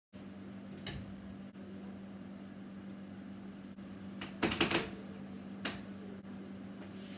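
Room tone with a steady low hum, broken by a few brief knocks or handling noises. The loudest is a short cluster about four and a half seconds in.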